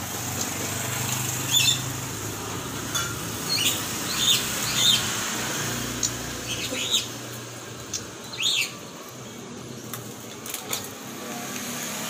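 Small caged birds chirping in short, scattered calls, with wing flutters and a few sharp clicks against the cage, over a steady low background hum.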